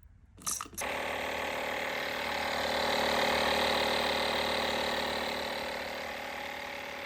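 Small air compressor switching on about a second in and then running steadily, its motor hum holding an even pitch as it pumps air into a freshly plugged tire.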